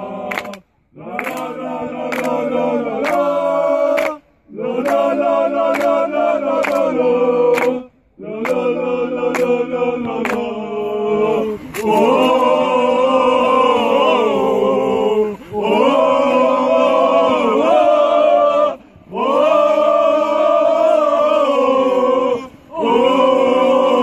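Football supporters' chant: a group of voices singing together in unison, in phrases a few seconds long with short breaks between them. Sharp regular beats fall about every two-thirds of a second through roughly the first half.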